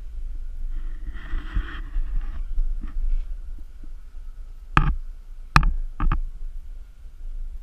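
Steady low rumble with a short hiss about a second in, then three sharp knocks, the second the loudest, about five to six seconds in.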